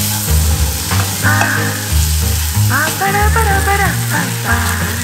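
Cheese and green chiles sizzling in a frying pan, stirred and scraped with a spatula. Background music with a steady bass beat plays along.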